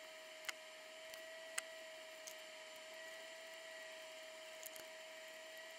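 Faint steady electrical whine, with a few light ticks as a soldering iron is worked on a circuit board to solder a capacitor.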